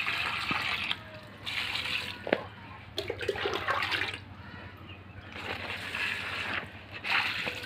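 Water poured from a red container onto the soil of potted plants, in about five separate pours of around a second each. A sharp knock sounds about two seconds in.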